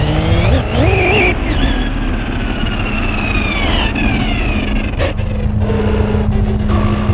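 Fast electric RC car running on pavement: a high motor whine that rises early on and then slowly falls in pitch as it slows, over steady tyre and drivetrain noise.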